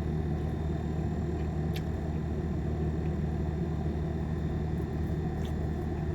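Steady low hum of a car engine running.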